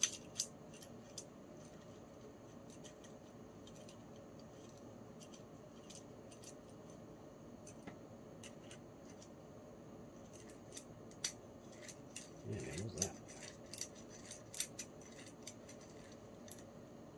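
Light, irregular metallic clicking and ticking of small bicycle hub parts, the gears and internals of a Sturmey-Archer S3B three-speed hub, being turned and fitted together by hand. The clicks come thicker a little past the middle.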